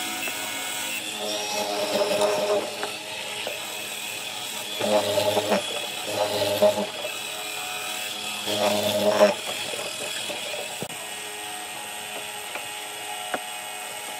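A power tool running steadily and cutting into wood, with four heavier surges as it bears into the work.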